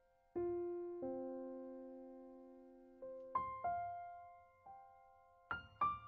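Background music played on a keyboard: slow single notes that ring out and fade away, then a quicker run of notes near the end.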